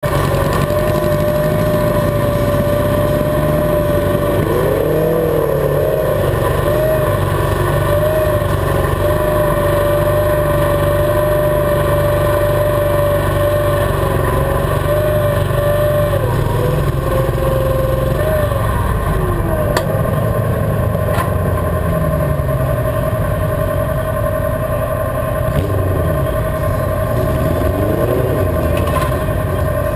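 Garden pulling tractor engine running steadily close by, its pitch wavering with a few brief rises and falls.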